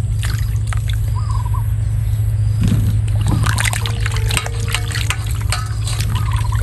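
Water splashing and sloshing as hands rub and turn cut cucumber pieces in a steel basin of water, with irregular splashes over a steady low hum.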